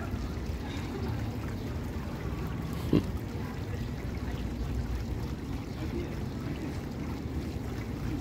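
Fountain water splashing and trickling steadily. A single brief sharp sound stands out about three seconds in.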